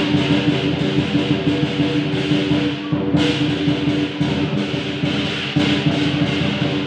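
Instrumental music with a held note and light percussion.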